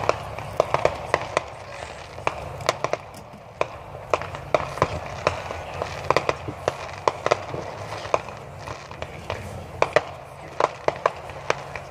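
Fireworks going off in a rapid, irregular string of sharp pops and crackles, several a second.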